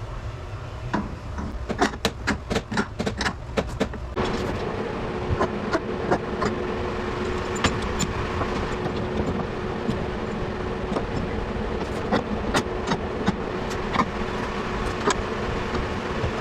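Sheet-metal panel of a truck utility bed box creaking and popping under clamp pressure as a dent is pulled out, with a quick run of sharp clicks and knocks. From about four seconds in, a steady hum joins, and scattered clicks continue over it.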